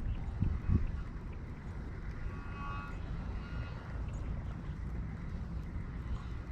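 Wind buffeting the camera microphone: a steady low rumble, with a couple of soft thumps within the first second.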